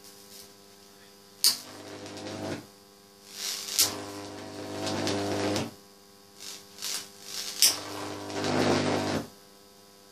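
High-voltage AC arc from two potential transformers in series, struck three times. Each strike opens with a sharp crack and goes on as a loud mains-frequency buzz for one to two seconds, with a faint transformer hum between strikes.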